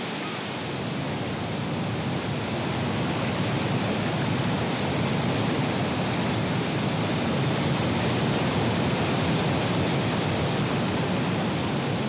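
Heavy whitewater of the Niagara falls and river rapids rushing steadily. The sound swells a little over the first couple of seconds, then holds.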